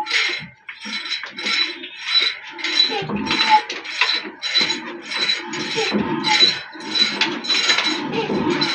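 Even, rhythmic metallic clinking from a large stationary diesel engine, about two clinks a second, each with a bright ringing note.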